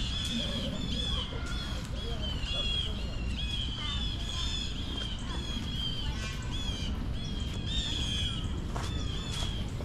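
Small birds chirping in a dense, continuous chorus: many short, high chirps overlapping one another, over a low background rumble.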